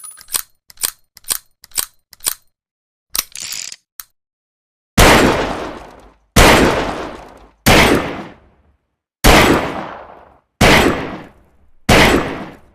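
Saturday night special revolver: a string of quick metallic clicks and a short rattle, then six loud shots about a second and a half apart, each trailing off in a long echo.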